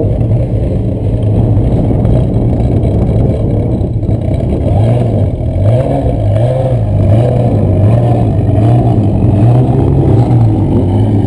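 A multirotor drone's motors and propellers humming loudly close to the microphone, with a steady high whine above. The low hum wavers up and down in pitch as the drone manoeuvres.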